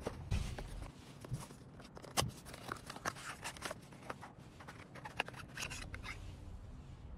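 Cardboard box of a tyre puncture repair kit being opened and its contents handled: irregular scrapes, rustles and light clicks of cardboard and plastic.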